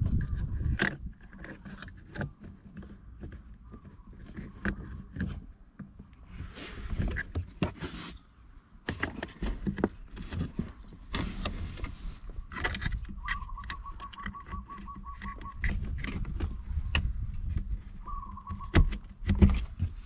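Scattered clicks, scrapes and small plastic rattles of hands working a retaining clip onto the gear shift cable end in a 2008 Nissan Frontier's center console. About thirteen seconds in a rapid pulsing high tone sounds for a couple of seconds, returns briefly, and a louder knock comes near the end.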